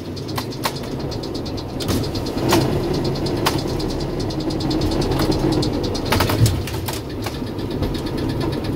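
FAUR L45H diesel-hydraulic locomotive's diesel engine running under throttle, heard from inside the cab while the engine pushes loaded coal wagons. Sharp clicks and knocks are scattered through it, with a small cluster about six seconds in.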